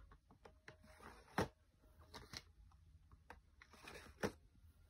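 Plastic DVD cases handled and slid against a boxset's box: faint scattered clicks and rustles, with two sharper knocks, one about a second and a half in and one near the end.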